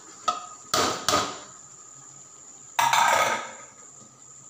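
A metal strainer knocking twice sharply against the rim of a metal cooking pot as the last boiled rice is shaken out, followed about three seconds in by a longer metallic clatter that fades away.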